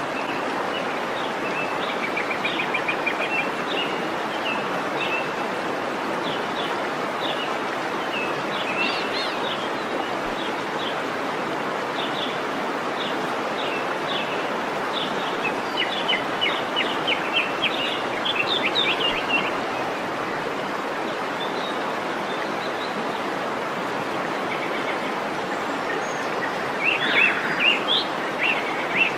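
Waterfall rushing steadily, with birds chirping over it in quick runs of short calls for most of the first two thirds and again near the end.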